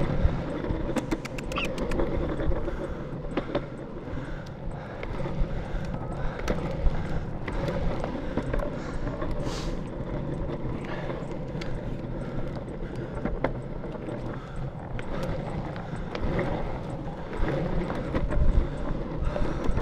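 Longboard wheels rolling on pavement: a steady rumble with scattered sharp clicks, including a quick run of clicks about a second in.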